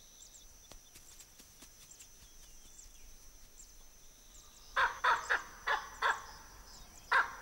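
Baboon barking: about six loud, sharp barks in quick succession, starting nearly five seconds in, after a stretch of faint background.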